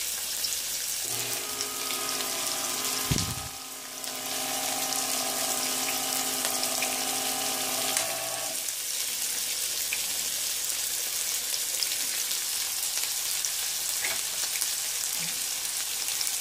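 Electric can opener motor whirring steadily for about seven seconds as it cuts around a steel can, with a brief low thump near the start. Oil sizzles in a frying pan throughout.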